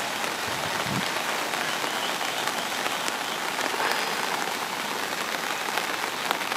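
Steady hiss of heavy typhoon rain mixed with the rush of the flood-swollen river, with a few faint drop ticks.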